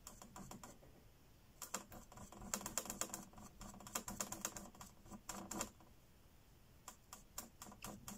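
Paintbrush tapping and scratching on the surface of an acrylic painting: several bursts of quick, light ticks, with short pauses between them.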